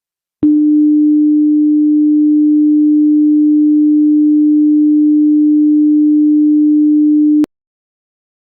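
Hearing-test tone: a single steady, low-pitched pure sine tone that switches on with a click about half a second in, holds unchanged for about seven seconds, then cuts off abruptly.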